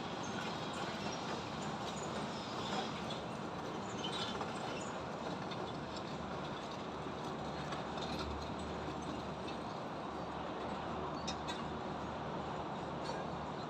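Steady din of highway traffic mixed with construction-site noise, with a few scattered light knocks and clinks.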